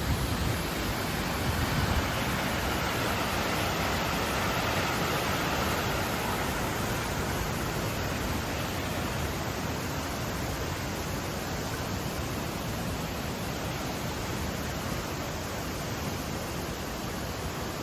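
Steady rushing of a mountain river, an even hiss of moving water, a little louder in the first few seconds.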